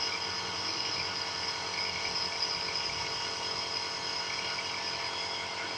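Compressor nebulizer running: a steady motor hum with a constant high hiss as it pumps air to make the medicine mist.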